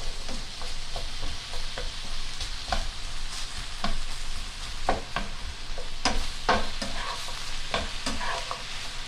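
Sliced onions and bell peppers sizzling in a frying pan of chicken fat and juices over medium-high heat, with a spatula scraping and knocking against the pan in many short strokes as they are stirred.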